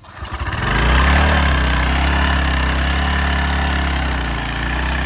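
Small gasoline engine of a Craftsman pressure washer starting up and running steadily, building to full speed within about the first second.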